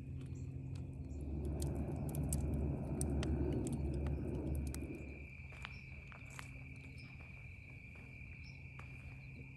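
Crickets trilling steadily. From about a second in, a louder low rushing noise joins them for roughly four seconds, with scattered sharp clicks.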